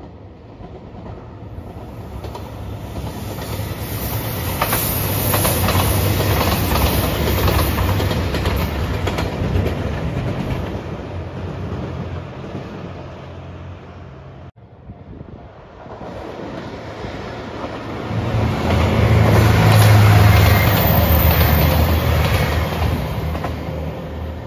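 JR Shikoku 2700 series diesel express train running past, its rumble building up and then fading. About halfway through it cuts off sharply and a second pass of the same kind of train builds up, louder, and fades again.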